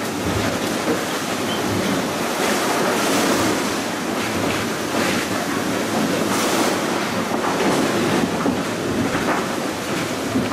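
Constant rush of water and wind heard inside the cabin of an IMOCA 60 racing yacht under way at sea, the hull noise swelling and easing a little.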